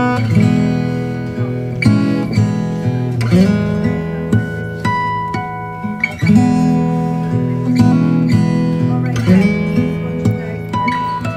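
Background music: acoustic guitar playing, with plucked notes and chords ringing out one after another.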